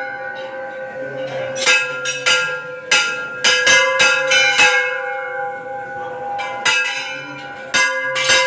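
Hanging temple bells struck again and again at an uneven pace, about ten strikes, each ringing on and overlapping the last.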